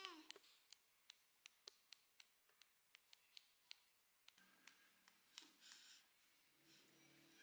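A quiet room with a run of faint, sharp little clicks, about three a second, and a faint low hum joining about four seconds in.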